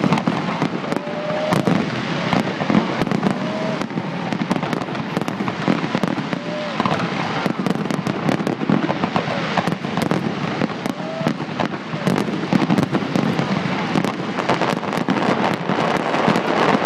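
Fireworks display in a continuous barrage: dense, rapid bangs and crackles overlapping without a break.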